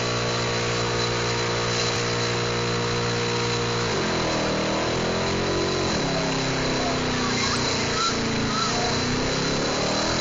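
1973 AMC Ambassador's V8 at high revs during a burnout, rear tyres spinning and smoking. The revs hold steady for about four seconds, then drop and climb again several times.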